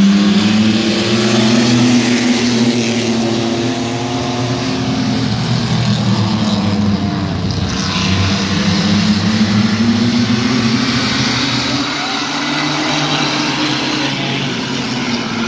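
A pack of mini trucks racing on a short oval, their engines running hard together. The engine pitch falls and rises again as the trucks come past and lap the track.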